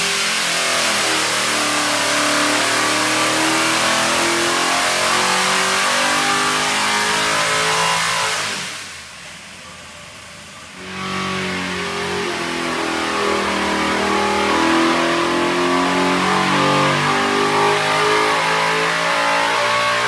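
Freshened Pro Power racing engine running hard under test, its pitch wavering as it is held at high revs; about nine seconds in it eases off and goes much quieter for a couple of seconds, then is run back up.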